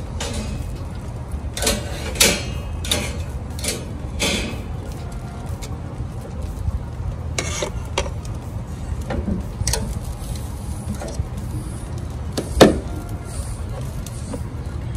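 Metal tongs clicking and scraping on a stainless-steel gas grill grate as a whole fish and sweet potatoes are set down on it, with a sharp knock about twelve and a half seconds in, over a steady low rumble.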